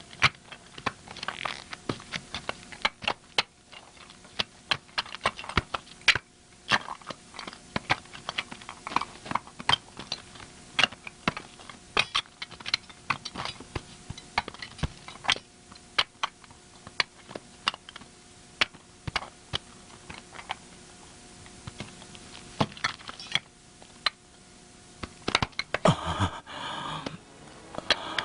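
Irregular sharp taps and clicks of bricks and hand tools being handled in building work, several a second, over a faint steady tone.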